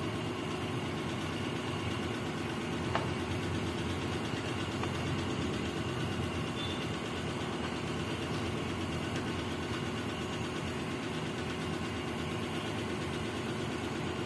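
A pan of pork and chicken simmering in coconut milk on the cooktop, with a steady low rumbling hum and one light click about three seconds in.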